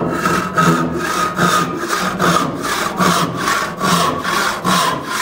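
Hand saw with properly set teeth cutting a board in steady, even back-and-forth strokes. Each stroke rasps freely through the kerf without binding.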